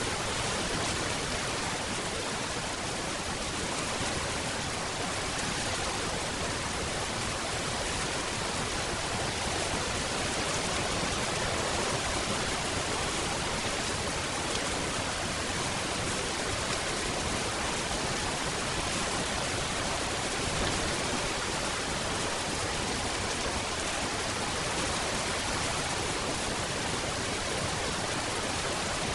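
Steady rain, an even, unbroken hiss with no thunder and no single drops standing out.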